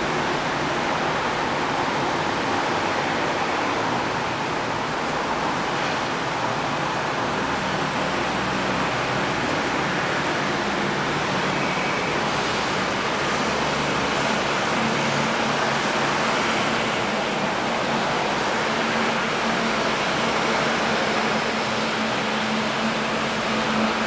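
Steady rain hiss over city street traffic, with a vehicle engine's low steady hum growing stronger in the second half.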